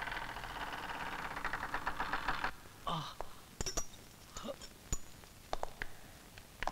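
A heavy door creaking open in one long rasping creak that stops about two and a half seconds in. After it come scattered knocks and light metallic clinks, along with footsteps on wooden stairs.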